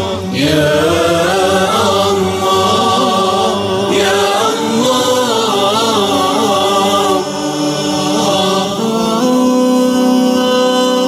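A cappella Islamic nasheed: layered voices singing melismatic, wavering lines with a choir-like backing, settling into a long held note near the end.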